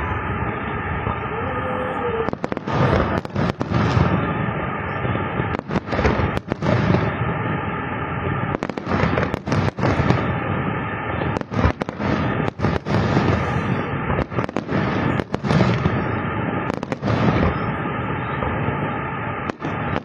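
Fireworks display: a continuous din of bursting shells, broken by many sharp bangs that come singly and in quick clusters.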